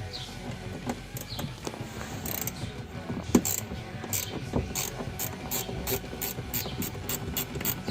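Socket ratchet wrench clicking as a 13 mm hard-top bolt is worked loose, in an even run of about three to four clicks a second over the second half. A single sharp knock a little after three seconds in.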